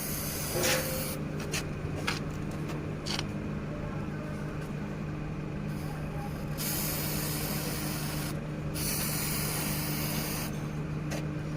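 Aerosol can of dye penetrant spraying onto a weld joint in several hissing bursts: one ending about a second in, then two long sprays in the second half with a short break between them. This is the penetrant being applied, the first step of a dye penetrant crack test. A steady low hum runs underneath.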